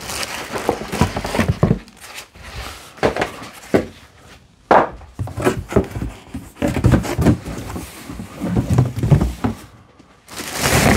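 Handling noise of unpacking: cardboard box and molded pulp packaging rustling and scraping, with plastic wrap crinkling and a few dull knocks as the box and the wrapped machine are moved on a countertop.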